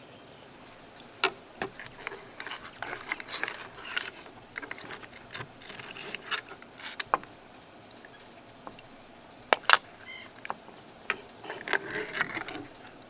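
Irregular light clicks, taps and short clatters of small hard objects being handled, with a few sharper knocks about a second in and again near the ten-second mark.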